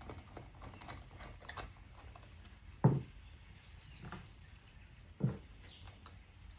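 Small clicks and taps of hands handling acrylic nest parts and small metal bolts and nuts, with two dull knocks, about three and five seconds in.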